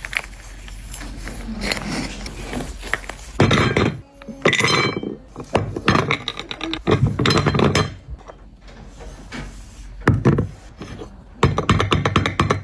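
Dried clay chips crunching and crumbling in a series of about six loud, crackly bursts, with quieter stretches between them.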